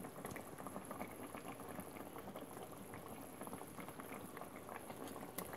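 Curry of green beans, potatoes and tomato simmering in a pot, a faint steady bubbling full of small pops. One sharper tick near the end.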